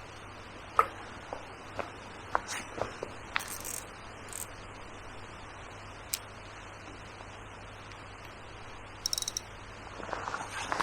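Fishing tackle being handled on the riverbank: scattered light clicks and taps over a steady background hiss. About nine seconds in there is a brief, high rattling chirp.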